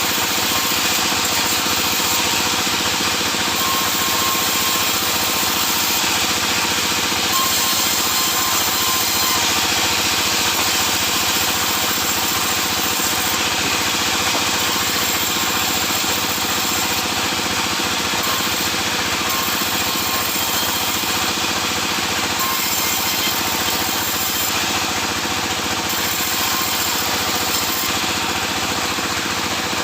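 Sawmill saw and its motor running steadily, a dense, even machine noise with a constant hum underneath that does not let up.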